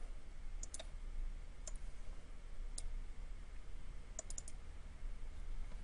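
Computer mouse buttons clicking: scattered single clicks, then a quick run of three about four seconds in, over a low steady hum.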